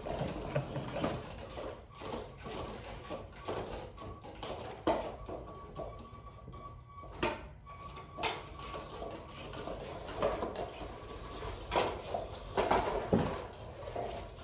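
Remote-controlled competition robot driving and turning on a carpeted field: irregular knocks and clattering from its wooden frame and wheels, louder a few times near the middle and end, with a faint thin whine that comes and goes.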